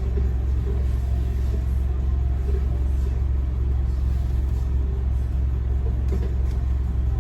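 Steady low rumble of a car idling or creeping forward in a line, heard from inside the cabin.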